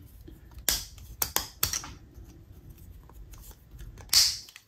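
Small plastic locomotive parts being handled: the gear cover of an HO-scale Bachmann F7 truck clicking into place, with a handful of sharp clicks between about half a second and two seconds in and a brief scrape near the end.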